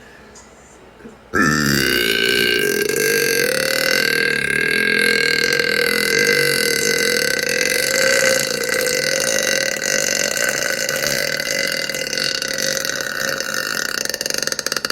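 A woman's single, very long belch. It starts about a second and a half in and is held steadily, without a break, for over thirteen seconds.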